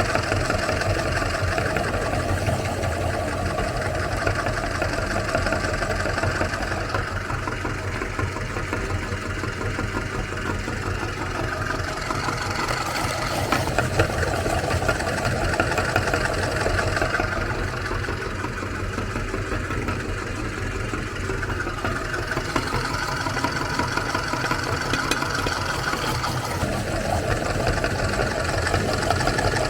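Meat grinder motor running steadily as it grinds Oreo cookies.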